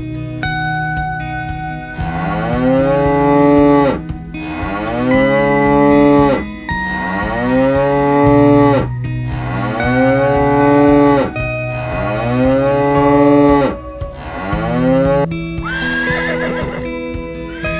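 Cows mooing: five long calls, one after another, each rising and then falling in pitch. Near the end a horse's whinny begins.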